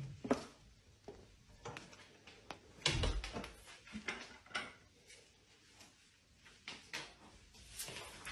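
Deer hooves clicking and tapping irregularly on a hard garage floor as a young buck walks about, with a heavier thump about three seconds in.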